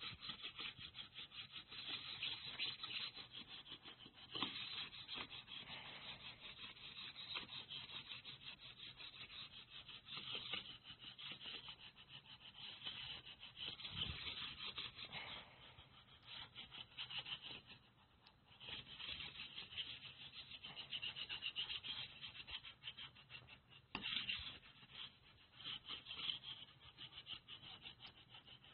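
A hand-held pad rubbed rapidly back and forth over paper: a fast, scratchy rubbing that goes on in quick strokes. It eases off briefly about two-thirds of the way through, with a couple of sharp clicks along the way.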